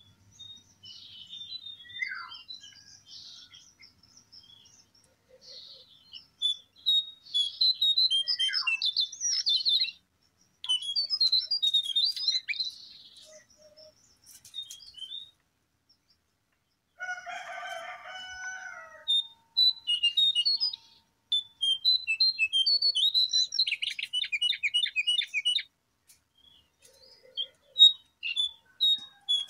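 Lesser shortwing (cingcoang coklat) singing: phrases of rapid high-pitched chirps and trills broken by short pauses, with a brief lower call about halfway through.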